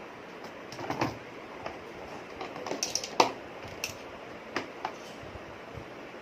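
Light clicks and knocks from a cordless tool battery and charger being handled and set up. The loudest knock comes about three seconds in, over a steady hiss.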